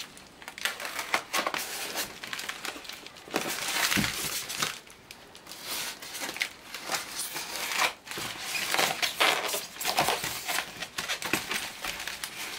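A white styrofoam packing block being handled and pried open on top of a cardboard box: foam rubbing and scraping against foam and cardboard in irregular spells of crinkly scratching.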